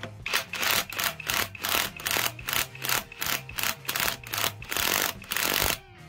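Ratchet wrench worked back and forth, running the top nut down the rod of a new front shock absorber strut held in a spring compressor: a rapid rasping run of clicks on each stroke, about two strokes a second, stopping near the end.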